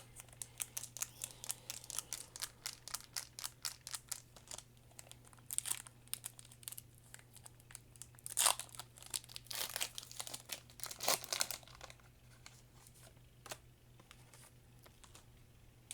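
A foil Pokémon booster pack wrapper being crinkled and torn open. Quick light clicks for the first few seconds, then louder crinkling and tearing of the foil.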